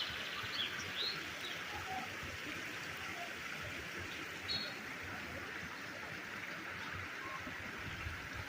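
Steady rush of water at a clear lake, with scattered bird chirps over it, including a brief high trill about halfway through.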